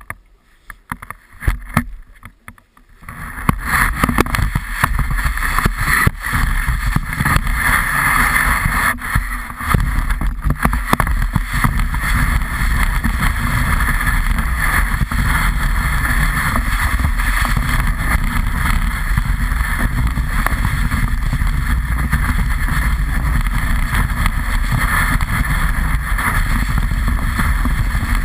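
Snowboard sliding over snow, heard through a camera mounted on the board: after a few light knocks, a steady rushing scrape starts about three seconds in, with a low wind rumble on the microphone.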